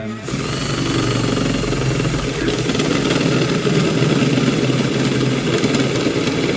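Makita cordless drill driving an Armeg Pro-Step step drill bit through a metal plate, enlarging a hole step by step. The motor and the cutting bit start abruptly and then run steadily.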